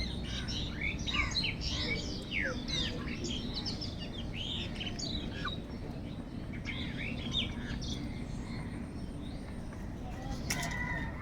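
Many birds chirping in a busy chorus of quick, high, sweeping calls, with a crow cawing once near the end.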